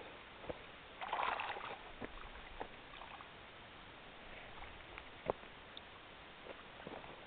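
Water splashing and sloshing briefly about a second in, at a keepnet of fish lying in shallow water, followed by a few faint clicks and taps over a steady low hiss.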